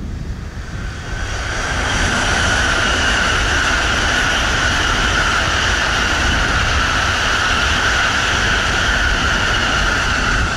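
N700-series Tokaido Shinkansen train passing at high speed: a rushing roar of air and wheels that builds over the first couple of seconds, holds steady and loud, then cuts off near the end.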